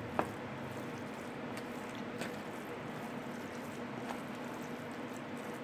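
Spoon stirring blood into cooked seasoned rice in a foil tray: soft wet squishing with a few light clicks of the spoon against the foil, the sharpest near the start, over a steady background hum.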